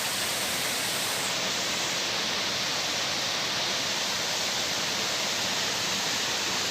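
Waterfall's water rushing steadily, an even hiss with no breaks.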